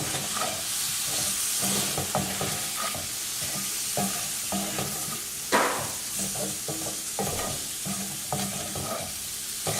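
Garlic shrimp sizzling in a frying pan in butter and olive oil, just dressed with lemon juice, while a utensil stirs it with repeated short scrapes and clicks against the pan, one louder scrape about halfway through.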